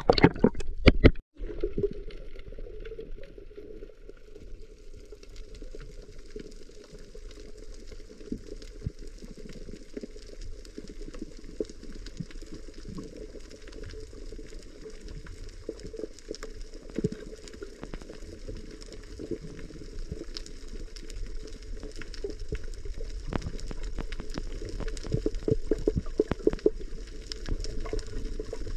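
Underwater sound picked up by a submerged camera: splashing in the first second or so, then a steady muffled hiss of water with scattered crackling clicks.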